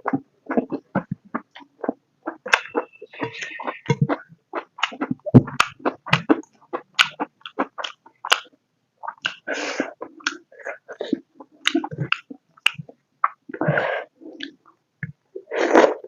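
Close-up mouth sounds of a person eating pork curry and rice: irregular wet chewing, lip smacks and clicks, with a few short breathy bursts about three and a half and nine to ten seconds in and near the end.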